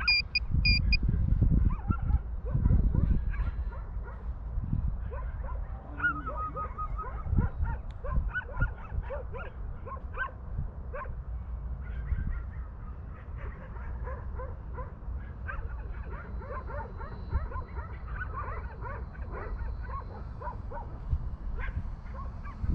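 A dog whining and yipping in many short, scattered cries, over wind rumbling on the microphone. A short high beep sounds right at the start.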